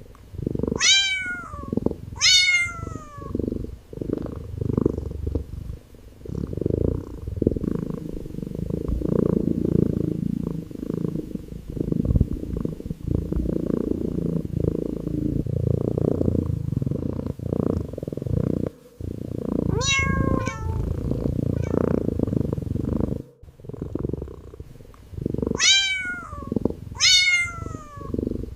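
A calico kitten purring steadily and close up. High, short meows with falling pitch cut in: two at the start, one about two-thirds of the way through, and two near the end.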